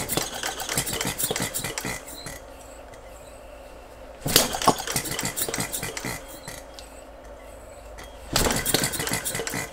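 Small Philip Duclos Odds n Ends hit-and-miss model engine spun over by hand at its flywheels. There are three bursts of rapid metallic clattering and ticking, each about two seconds long with a few seconds between. It is trying to fire but does not run, which the builder puts down to poor compression from leaking cast iron piston rings.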